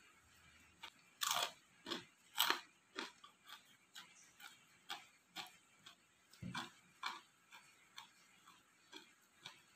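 A person biting into and chewing crunchy food close to the microphone: two loud crunches about a second in and a second later, then a steady run of lighter crunches about twice a second.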